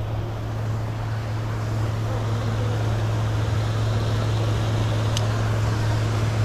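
Steady low motor hum with a wash of churning water, typical of a pond aerator running. One short tick about five seconds in.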